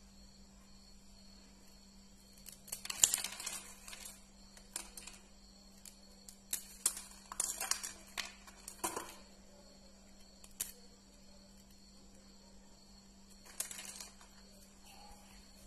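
Dry, brittle sesame-wheat kurdai crisps being broken apart by hand: scattered sharp crackles and snaps, clustered about three seconds in and again between about six and nine seconds in, with a few more later. A faint steady hum runs underneath.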